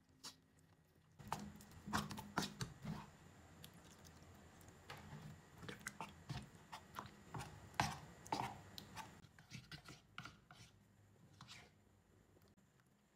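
A metal spoon stirs flour and water into batter in a bowl. The spoon clinks and scrapes against the bowl at irregular intervals. The taps thin out and get quieter over the last few seconds as the batter turns smooth.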